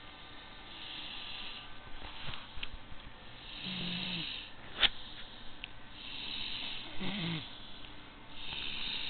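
Slow, rhythmic snoring: a breathy rasp about every two and a half seconds, some breaths ending in a short low rattling snore. A sharp click cuts in once, about halfway through.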